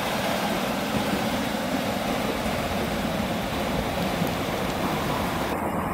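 ScotRail Class 156 diesel multiple unit pulling away from a station platform, its underfloor diesel engines and wheels on the rails making a steady running noise as it moves off.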